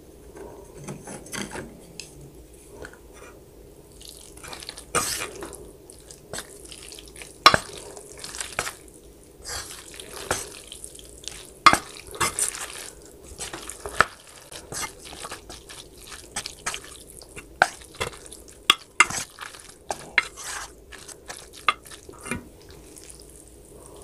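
Close-miked eating sounds of sauce-coated spicy stir-fried noodles: irregular wet, sticky clicks and squelches, a few of them sharper and louder.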